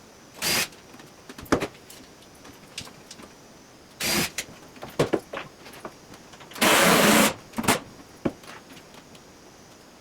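Clicks, knocks and short scraping rattles from handling LED shop lights and their hanging hardware. The loudest is a harsh scrape or rattle of under a second, about two thirds of the way through.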